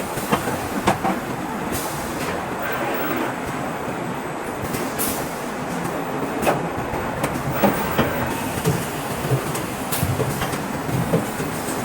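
Automated battery cell assembly line machinery running: a steady mechanical clatter with scattered sharp clacks every second or so.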